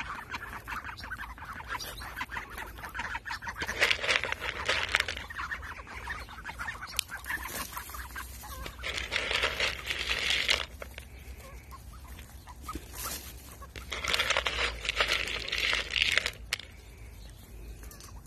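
A hen duck and her ducklings foraging through dry grass: rustling with soft clucking duck calls, which swell in several louder stretches a few seconds apart.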